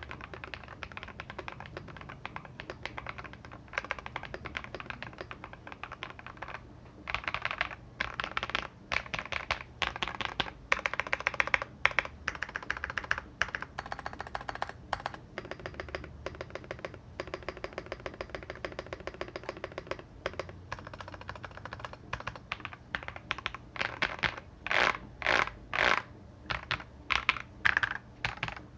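Typing on a JKTECH 87-key mechanical keyboard with lubed Akko Matcha Green switches, dampened inside with foam and tape mods. Quick runs of keystrokes with short pauses, a brief gap about seven seconds in, and louder, more separated strokes near the end.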